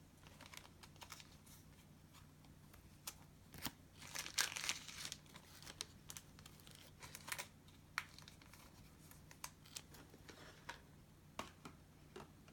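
Soft plastic card sleeves crinkling and rustling as trading cards are slid into them, with small ticks of handling and a louder crinkle about four seconds in.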